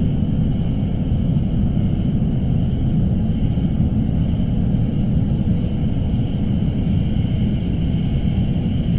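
Suspense ambience sound effect: a steady, low rumbling drone with a faint high tone held above it, unchanging throughout.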